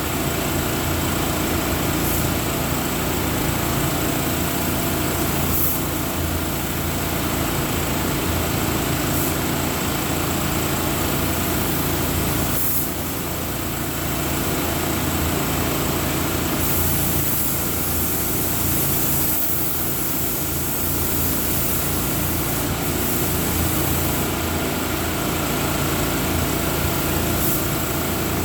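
Paint sprayer running steadily through a furniture topcoat: a constant motor drone with hissing that swells and fades.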